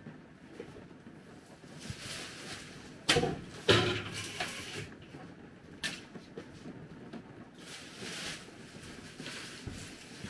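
Household objects handled at a small kitchen counter: two loud knocks a little after three seconds in, a lighter click near six seconds, and rustling in between.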